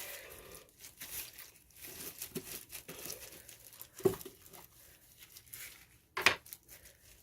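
Rustling and crinkling as paint-pouring supplies are handled, with a light knock about four seconds in and a sharper knock a little after six seconds.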